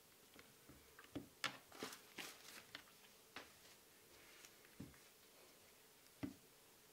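Faint, soft taps and moist squishing clicks of zucchini pieces being picked up and set down on a wooden cutting board. There is a quick cluster in the first few seconds, then two single taps later, the last one among the loudest.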